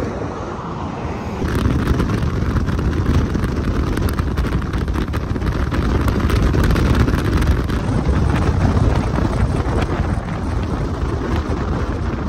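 Road and wind noise of a car moving at speed, with wind buffeting the microphone; it gets louder about a second and a half in.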